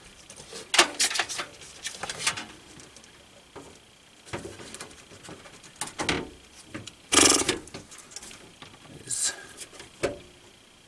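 Handling noise of a large tower CPU cooler being set in place and shifted inside a PC case for a test fit: scattered clicks, taps and short scrapes, the loudest a brief scrape about seven seconds in.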